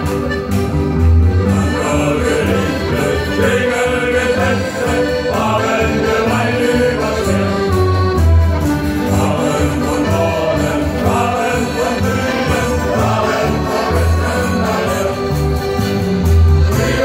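Live shanty music: accordions carry a sea-shanty tune over a steady bass line, with a men's choir singing.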